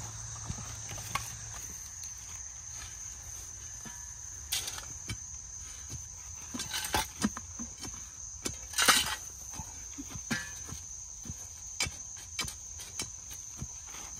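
Metal shovel blade scraping and scooping loose clay dirt into a post hole, irregular scrapes and knocks, the loudest cluster about nine seconds in. A steady high insect chorus of crickets runs underneath.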